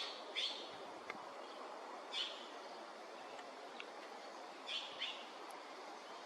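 A bird giving short, sharp calls, five in all, two of them in quick pairs, over a steady background hiss.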